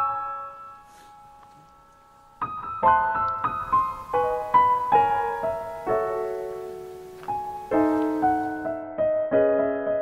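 Background piano music: a soft chord rings and fades, then a gentle melody of single notes begins about two and a half seconds in.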